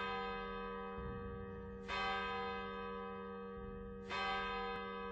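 A bell tolling slowly, struck about every two seconds. Each stroke rings on into the next as it slowly fades: one rings over from just before, and new strokes fall about two and four seconds in.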